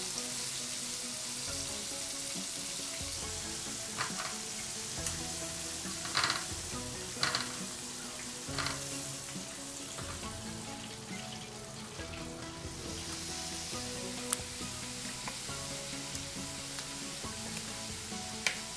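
Breaded chicken pieces deep-frying in hot oil in a cast-iron pan, a steady sizzle. A few sharp knocks of the metal tongs and slotted spoon come at intervals as the pieces are turned and lifted out.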